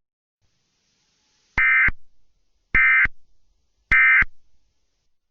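Three identical short bursts of Emergency Alert System SAME data tones, about a second apart: the end-of-message code that closes a weather radio warning.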